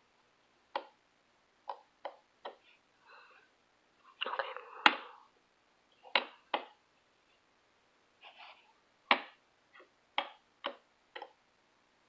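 Soft, irregular close-up taps and clicks, about a dozen scattered short sounds with a brief cluster of rustling and clicking around the middle.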